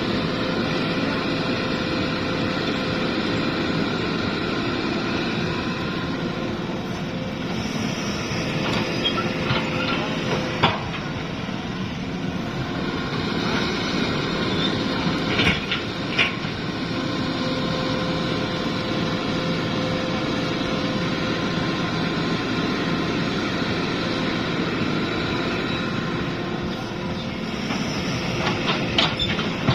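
Hitachi hydraulic excavator's diesel engine running steadily while working, with a few sharp metal knocks, about eleven and sixteen seconds in and again near the end.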